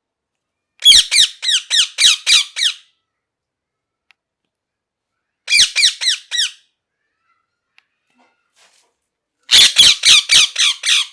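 Rose-ringed (ringneck) parakeet screeching in three loud bursts of rapid, harsh calls, each note falling in pitch, about three or four notes a second.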